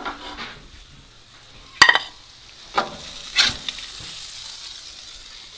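Food sizzling on a barbecue hotplate while a metal utensil scrapes and knocks on it, with a sharp clack a little under two seconds in and two more scrapes a second or so later.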